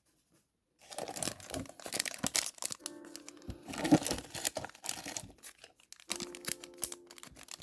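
Plastic wrapping crinkling and being torn open by hand, a dense run of irregular crackles that starts about a second in.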